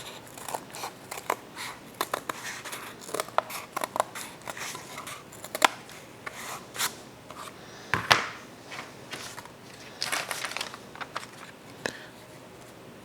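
Scissors cutting cardboard in irregular snips and crunches, the loudest about eight seconds in.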